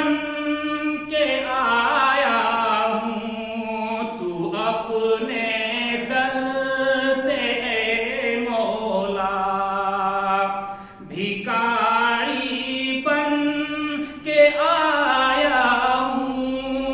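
A man's solo voice chanting an Urdu devotional nazm without accompaniment, in long held, wavering melodic lines with short breaks for breath.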